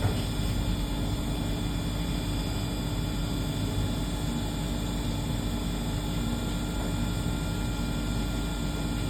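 CNC sliding-headstock (Swiss-type) automatic lathe running steadily: an even machine hum with faint steady whining tones above it.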